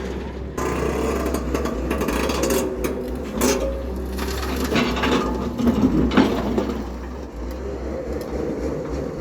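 Diesel engine of an excavator running steadily with a low rumble, with scattered knocks and clanks from the working machine, loudest about three and a half and six seconds in.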